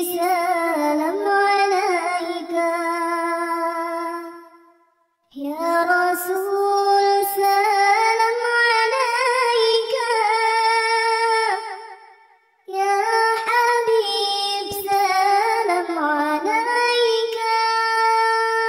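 A high singing voice chanting an Islamic salawat in long, drawn-out melismatic phrases, the held notes wavering and sliding between pitches. There are three long phrases with short breaks for breath about five and twelve seconds in.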